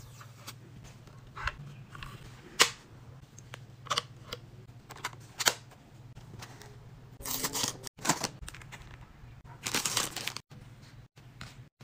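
Fujifilm Instax Square SQ1 instant camera being handled: a series of sharp plastic clicks from its power dial and buttons, the loudest about two and a half seconds in. Later come two spells of crinkling from the foil wrapper of its film pack.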